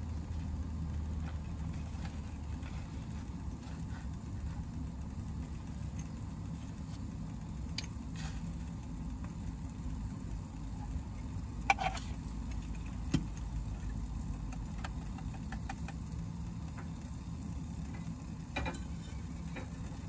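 Small clicks and taps of pour-over coffee gear being handled: a paper filter folded, a small metal canister opened and a hand coffee grinder put together. There are a few sharper clicks around the middle and one more near the end. Under them runs a steady low hum like an idling engine.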